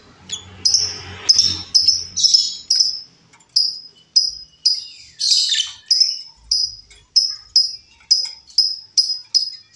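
Female lovebird calling: a fast run of short, sharp, high chirps, about two a second, with a longer harsh screech about five seconds in.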